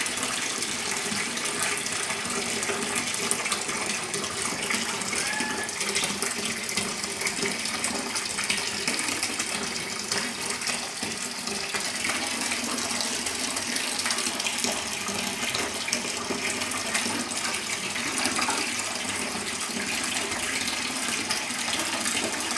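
Bathtub tap running steadily, water pouring into a partly filled tub.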